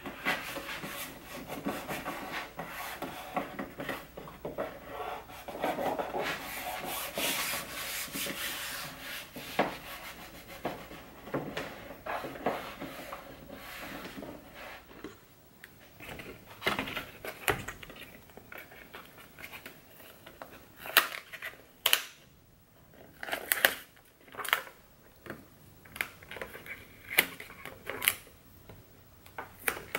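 Hands rubbing and smoothing carbon-fibre vinyl wrap film over a center console trim piece, a steady scrubbing rub for about the first half. After that the film crackles and snaps in sharp, separate ticks as it is handled and pulled.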